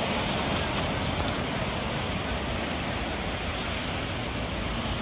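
Steady rushing noise of a rainy roadside: traffic on the wet road and light rain, with wind buffeting the microphone.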